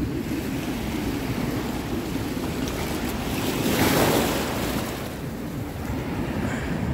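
Shore waves washing in over shallow water, one surge swelling up and breaking about four seconds in, with wind buffeting the phone's microphone throughout.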